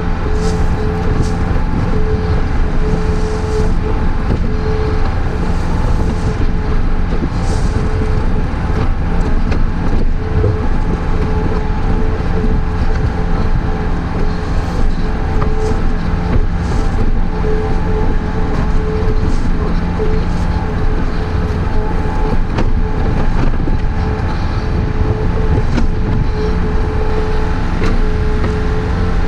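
Takeuchi TB153 mini excavator's diesel engine running steadily under working load, with a steady hydraulic whine over the engine's rumble.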